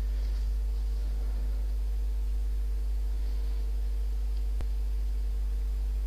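Steady low electrical hum with faint higher tones above it, unchanging throughout, and a single faint click about four and a half seconds in.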